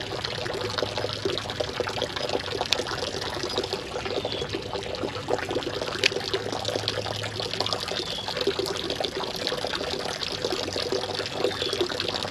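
Creek water trickling and splashing steadily over rocks.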